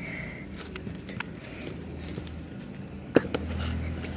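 Hand mixing wet soil and water in a metal pot, with faint scattered squelches and scrapes. A sharp knock comes about three seconds in, followed by a low rumble.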